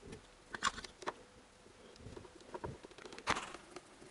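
Faint, scattered clicks and rustles of hands handling small parts around a car engine's timing-belt area, with a sharper tap about three seconds in.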